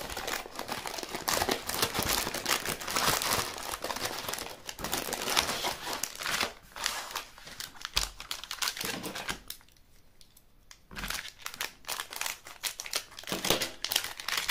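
Plastic gummy-candy packets crinkling as they are pulled from the box and handled, with a brief quiet pause about two-thirds of the way through.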